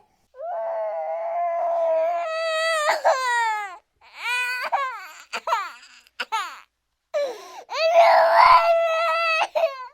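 High-pitched, childlike crying: a long wail, then a few short broken sobs, then another long wail near the end.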